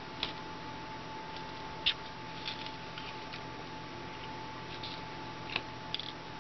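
A few light clicks and taps of small plastic parts being handled and set down on a tabletop, the sharpest about two seconds in, over a steady faint hum.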